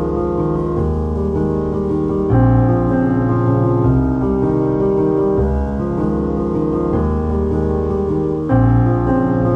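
Background piano music, chords held and changing at an even pace, with a louder, deeper chord about two seconds in and again near the end.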